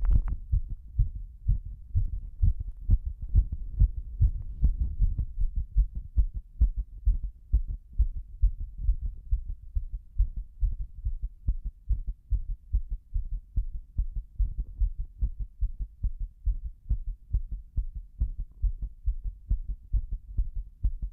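Human heartbeat pounding fast and evenly, a steady train of deep low thuds, during a breath-hold.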